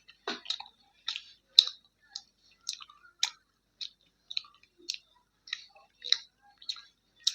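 Close-miked chewing with wet mouth clicks and smacks, about two a second in an even rhythm.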